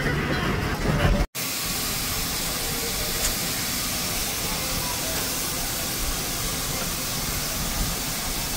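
Steam locomotive No. 2023 rolling past with a low rumble, then, after an abrupt cut about a second in, a steady hiss of steam from the locomotive.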